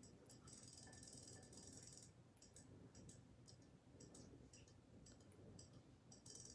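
Faint rapid clicking of robotic toy fish swimming in a glass bowl of water, with scattered single clicks and two spells of fast ticking, one about half a second to two seconds in and another starting near the end.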